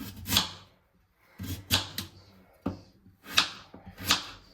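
Kitchen knife cutting through food and striking a chopping board, about six uneven strokes.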